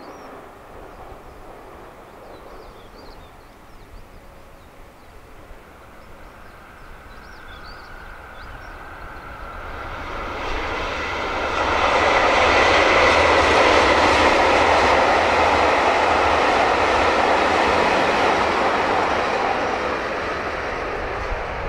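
A diesel train approaching and passing: its noise builds over several seconds, stays loud for about eight seconds with a faint steady whine over it, then begins to fade near the end.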